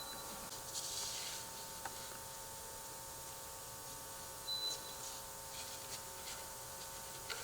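Faint scraping and a few light taps of wooden installation shims being slid together behind a door frame's hinges, with a couple of brief high squeaks, over a steady electrical hum.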